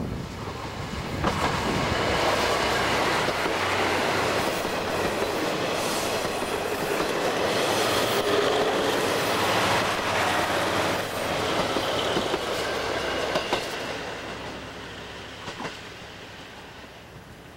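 Kiha 183 series diesel express train passing close by: its diesel engines run and its wheels clatter over the rail joints. The noise swells about a second in, holds for several seconds, then fades toward the end as the train moves away.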